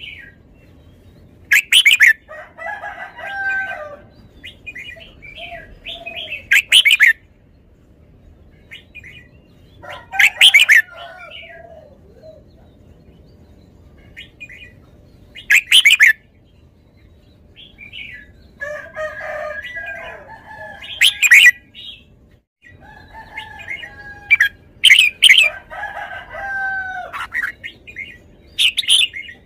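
Caged red-whiskered bulbul singing: loud, short, bright phrases come about every four to five seconds, seven in all, with softer warbling in between.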